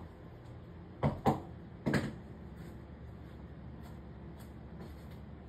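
Three short knocks about a second apart, the loudest in the middle, over a steady low background hum.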